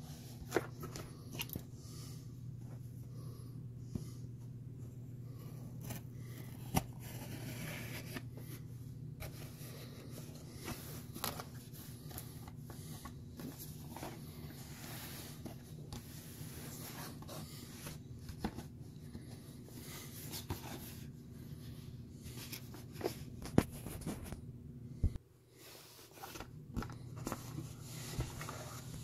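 Objects being handled at close range: scattered sharp clicks, taps and rustles over a steady low hum that cuts out suddenly about 25 seconds in.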